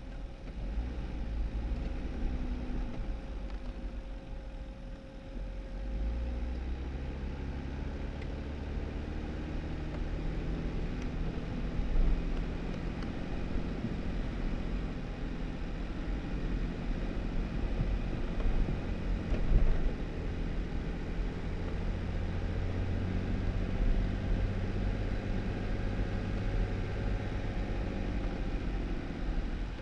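2018 Jeep Wrangler driving on a snowy dirt road: a steady engine hum that rises and falls in pitch as it speeds up and slows, over a low rumble of the tyres, with a couple of brief bumps.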